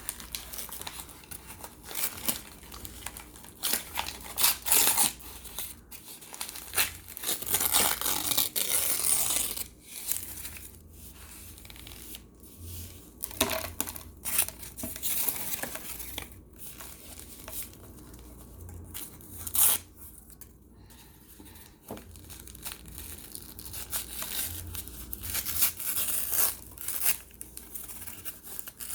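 Microwave-baked cornstarch crackling and crumbling as the dry chunks are broken up, a long run of irregular sharp crackles and short crunchy scrapes.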